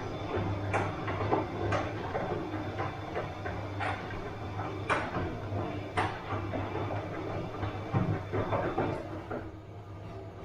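Bosch washing machine running a wash cycle: a steady motor hum with irregular knocks and clunks as the drum turns the laundry, going quieter about nine and a half seconds in.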